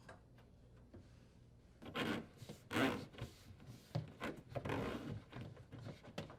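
Dishwasher drain hose being worked loose and dragged through a hole in the cabinet wall: a run of irregular rubbing and scraping sounds, starting about two seconds in and lasting about four seconds.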